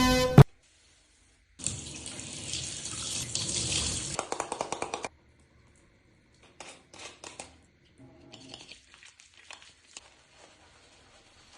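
Water running from a tap or shower for a few seconds, ending abruptly, then a run of short squeaks as wet, freshly washed hair is rubbed squeaky-clean, with a few fainter rubbing sounds after.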